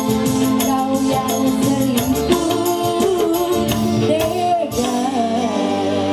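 Music with a sung melody over sustained keyboard notes and a steady beat.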